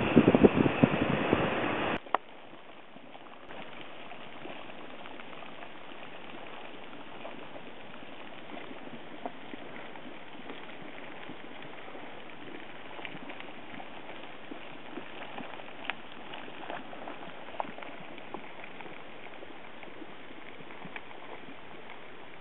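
Wind buffeting the microphone for the first two seconds, then it cuts to a quiet, steady hiss with scattered small pops and splashes: a boiling hot spring bubbling and steaming.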